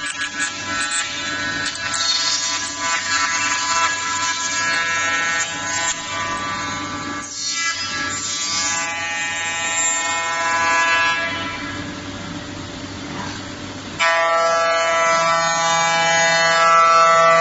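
5-axis CNC router spindle running and cutting solid wood: a steady whine of stacked tones over a rough cutting noise. Near the end the sound abruptly gets louder and its pitch pattern changes.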